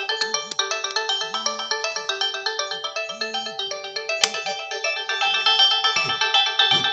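Nokia 5070 mobile phone playing one of its original ringtones: a fast melody of many short notes over a held lower note, with a single click about four seconds in.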